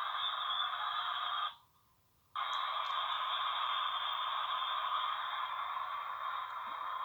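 White noise played back as a steady, thin hiss with no deep or very high parts. It cuts out abruptly for just under a second about one and a half seconds in, then resumes.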